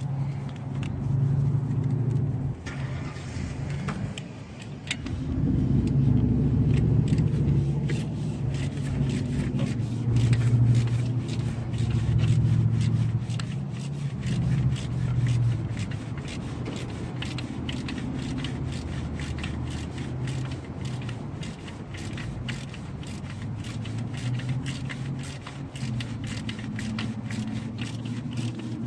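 Ratchet wrench clicking in a quick, steady run as a tight alternator bolt is worked down, from about four seconds in, over a loud low rumble.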